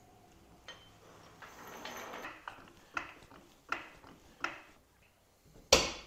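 Hydraulic floor jack being pumped by its long steel handle to raise a car: a short metallic clack with each stroke, several in a row, and a louder clank near the end.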